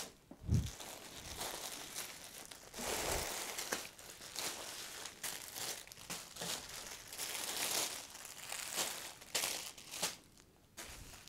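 Clear plastic bags around packaged baby clothes crinkling and rustling in irregular bursts as the packets are picked up and moved about, with a soft low thump about half a second in.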